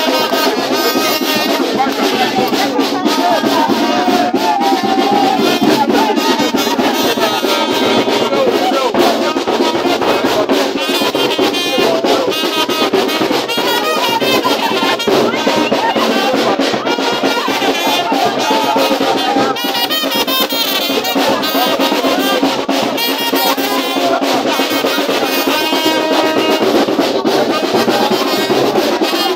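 Brass band playing lively dance music with trumpets and drums, with a crowd's voices mixed in.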